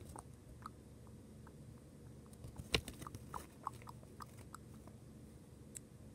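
Faint scattered clicks and taps of small things being handled, with one sharper click about three seconds in.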